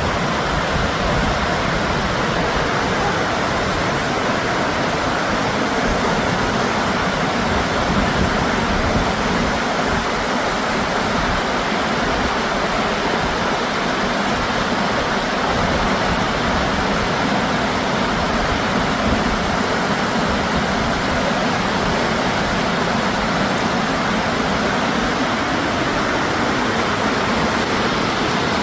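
Rushing river rapids: a steady, loud rush of fast-flowing water.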